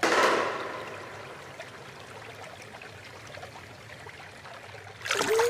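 Fountain water pouring and trickling in a steady flow, loudest in the first moment and then settling. About five seconds in, a brief louder sound with a short pitched note cuts in.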